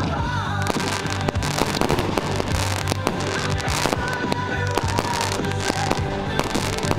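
Fireworks going off in quick succession, many sharp bangs and crackles, over loud music with held notes and a bass line.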